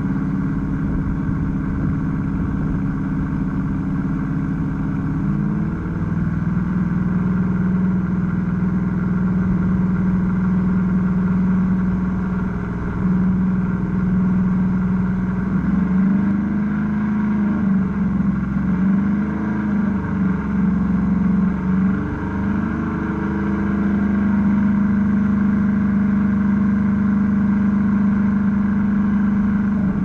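2015 Chevrolet Camaro RS engine idling through its dual exhaust, heard from behind the car. The idle note drops slightly about five seconds in, the engine speed wavers up and down with a few light revs in the middle, then it settles back to a steady idle.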